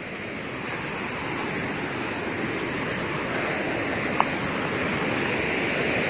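Muddy river rapids rushing over rocks below a waterfall: a steady roar of water that grows gradually louder as the rapids come closer.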